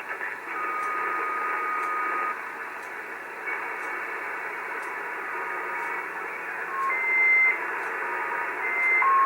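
Icom IC-730 shortwave transceiver receiving on the 75-metre band: a steady, muffled static hiss with several steady whistles at different pitches that come and go, as the receiver is tuned across the band looking for an interfering noise.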